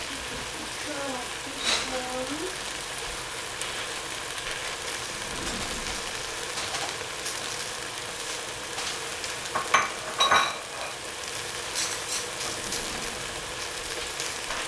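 Swiss chard sizzling in a stainless steel pot, a steady hiss, with a few sharp clicks, the loudest about ten seconds in.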